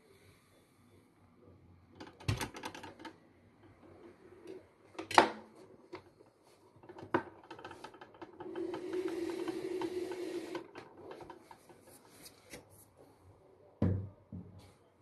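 Scattered knocks and rattles of things being handled and bumped. A vacuum cleaner motor whirs for about two seconds, a little past the middle.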